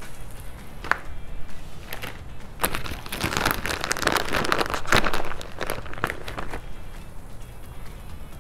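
Plastic bag of shredded cheese crinkling as it is handled and shaken out, densest in the middle. There are a couple of light knocks before it.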